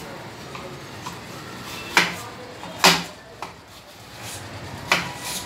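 Sharp knocks or clatters of hard objects: three loud ones, about two seconds in, again a second later, and near the end, with a fainter one between them.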